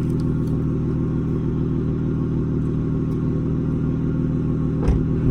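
Dodge Charger GT with a dual Flowmaster 40 exhaust idling steadily, an even low exhaust note; a single short knock just before the end.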